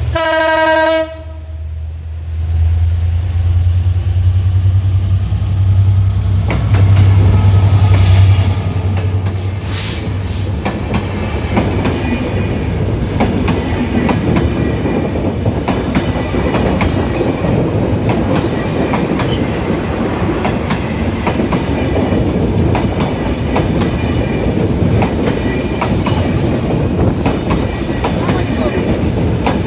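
EMD GT42ACL diesel locomotive sounding its horn once for about a second, then its engine passing with a loud low drone. From about seven seconds in, the passenger coaches roll by with steady clickety-clack of wheels over rail joints.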